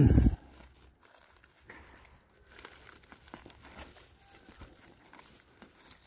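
A hand scraping through loose forest soil and dry leaf litter and tugging at fine roots: soft, scattered crackling rustles. A brief loud sound comes at the very start.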